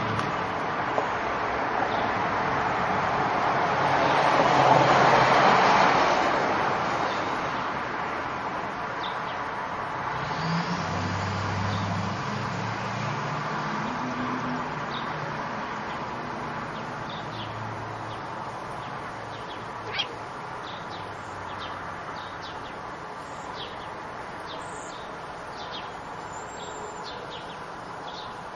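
Outdoor ambience: a vehicle passes, rising and falling about five seconds in, over a low rumble. Then many short bird chirps and ticks follow through the second half, with one sharp click about twenty seconds in.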